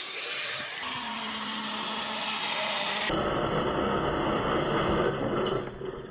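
Many glass marbles rolling and rattling through a marble run, with a steady hum joining about a second in. About three seconds in the sound changes abruptly to a lower rumble, which fades near the end.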